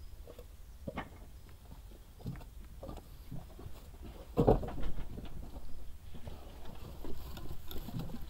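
Irregular knocks and clunks of cut wooden logs being handled and set down on a pile, with one louder, deeper thud about four and a half seconds in.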